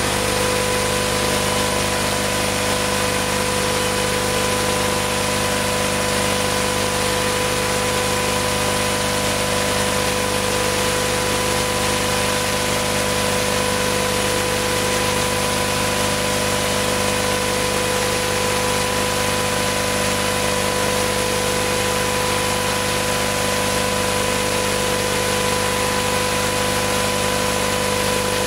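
Steady hum and hiss with a few constant tones and no changes or breaks.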